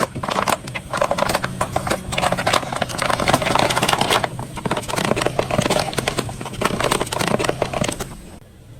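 Slime being squeezed and pressed by hand, a dense stream of small wet clicks and crackles that eases off near the end.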